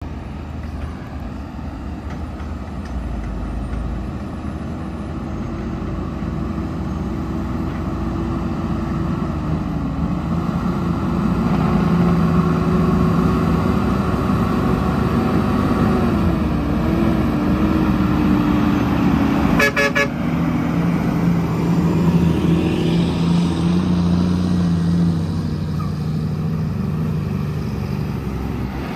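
Diesel engines of loaded dump trucks running under load as the trucks approach, the engine note dipping and rising a couple of times. A short horn toot about twenty seconds in.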